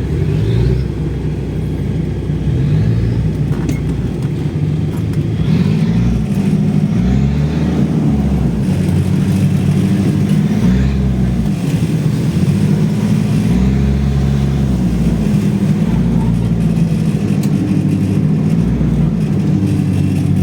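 Off-road 4x4's engine revving up and falling back again and again, the pitch rising and dropping every second or two over a steady low rumble, as it works through rough ground.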